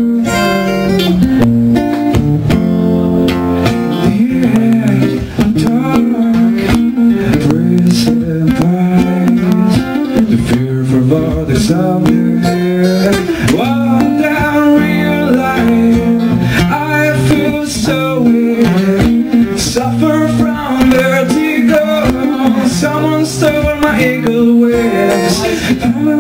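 Live acoustic rendition of a song: an acoustic guitar strummed in sharp, even strokes under a man's voice singing into a handheld microphone through the bar's PA.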